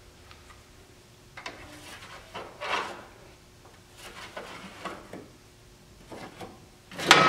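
A marker scratching along the edge of a sheet-metal repair panel held against a car's steel rear fender, tracing its outline in several short strokes. A louder scrape comes near the end.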